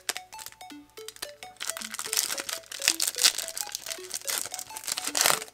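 A foil Pokémon booster pack wrapper crinkling as it is torn open by hand, loudest from about two seconds in to near the end. A light background tune of short notes plays underneath.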